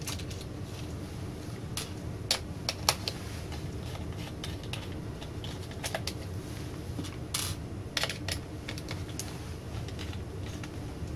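Scattered small clicks and taps of a screwdriver and loose screws as the screws holding the power board are taken out of an LCD monitor's metal chassis.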